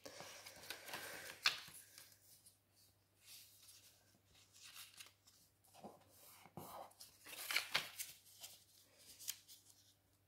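A paper cube net being creased along its fold lines and shifted about by hand: faint, irregular rustles and soft scrapes of paper, with a few louder crinkles about a second and a half in and again about three-quarters of the way through.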